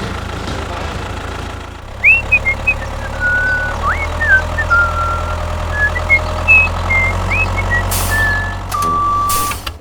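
A vehicle engine running steadily, with short high chirps over it from about two seconds in and a steady held tone near the end.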